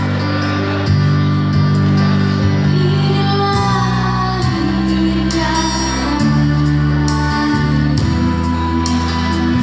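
A young woman singing an Indonesian pop ballad into a microphone over an instrumental backing track, with sustained chords changing every second or two beneath the vocal line.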